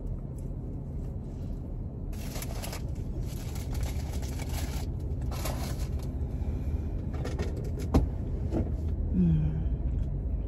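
Steady low rumble of a car's engine heard inside the cabin, with several short bursts of hiss in the middle and a sharp click about eight seconds in. Near the end comes a brief hummed "mm".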